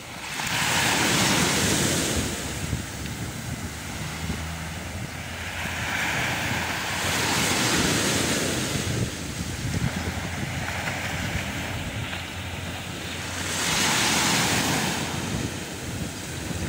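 Small sea waves washing onto the beach, swelling three times about six seconds apart, with wind on the microphone.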